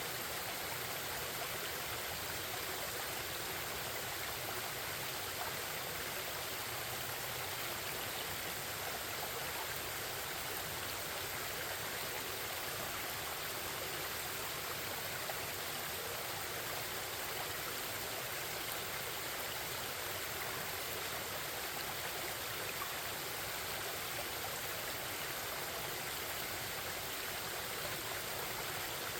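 Forest stream babbling: a steady, unbroken rush of flowing water.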